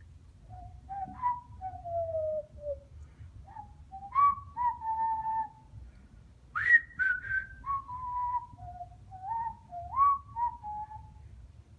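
African grey parrot whistling a string of clear notes in short phrases, some held steady, some sliding down or up in pitch.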